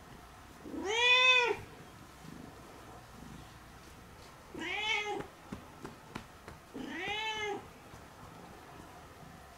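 A domestic cat meowing three times, each call rising and then falling in pitch. The first meow is the loudest.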